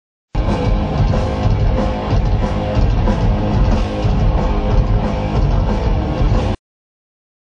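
Heavy metal band playing live and loud, distorted electric guitar over a full band. The sound cuts in abruptly just after the start and drops out to dead silence about six and a half seconds in.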